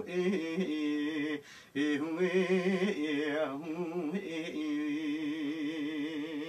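A man singing unaccompanied in the Kurdish dengbêj style: long held, ornamented notes with a wide vibrato, broken by a short breath about a second and a half in.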